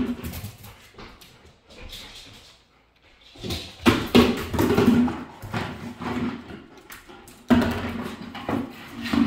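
A plastic bucket scraping and clattering on a hardwood floor as a dog pushes it and carries it in its mouth, in irregular knocks and scrapes, quieter for a moment about two to three seconds in and loud again from about three and a half seconds.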